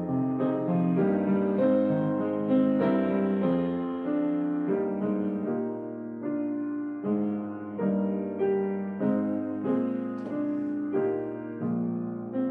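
Solo piano playing a slow piece, its notes struck about once or twice a second and ringing out between strikes.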